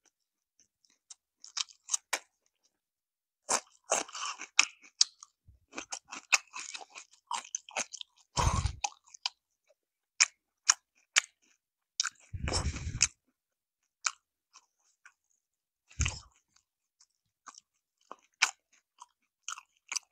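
Close-miked chewing of crispy fried chicken: irregular crackling crunches of the coating, with a few louder, heavier crunches along the way.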